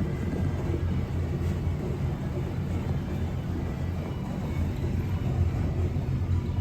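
Coin-operated washer-dryer running early in its wash cycle: a steady low rumble that pulses slightly as the drum turns.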